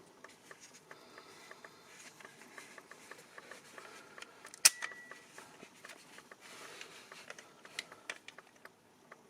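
Faint small clicks and taps from handling a spring-powered airsoft revolver. About four and a half seconds in there is one sharper click that rings briefly.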